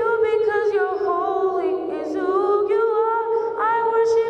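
A young soloist singing a slow melody into a microphone, holding long notes that waver slightly.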